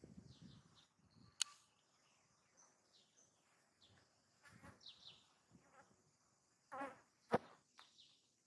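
Quiet outdoor ambience: a steady high insect drone with a few faint chirps, broken by a brief pitched sound and a sharp click about seven seconds in, and another sharp click about a second and a half in.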